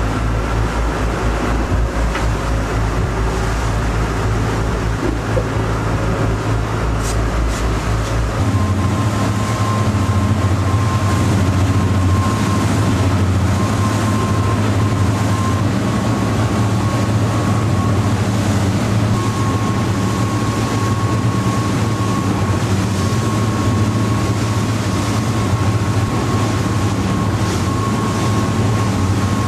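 Motorboat engine running steadily under way, with a steady hiss over it. About eight seconds in, the deepest rumble drops away and a thin, steady whine comes in.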